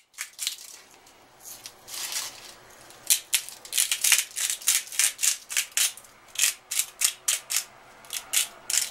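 Seasoning shaken from a container over a raw chicken in a foil-lined pan: a run of quick rattling shakes, about two or three a second, starting about three seconds in after some lighter rustling.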